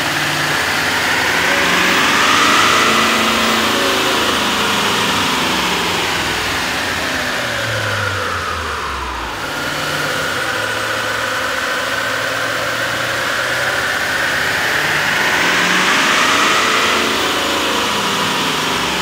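Chevy Silverado 2500HD's 6.6-litre Duramax V8 turbodiesel running under load on a chassis dynamometer in two runs, first with the stock intake and then, after a short break about halfway, with an AEM cold air intake. In each run the engine note and a high whine climb and then fall away.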